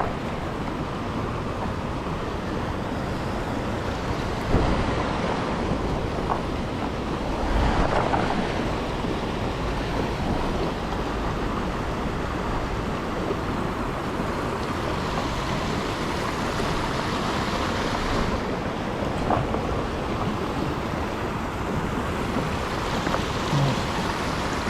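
Steady rush of flowing creek water, with a couple of brief louder moments about four and eight seconds in.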